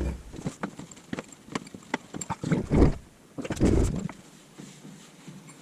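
Irregular metallic clicks and knocks from a large spanner working the steering tie rod loose on a car, stopping about four seconds in.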